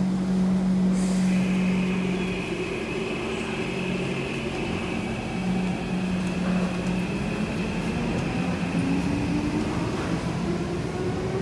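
SMRT C151 metro train pulling out of the station and gathering speed. A short hiss about a second in, then a steady high whine, and a lower motor tone that climbs in pitch as the train accelerates.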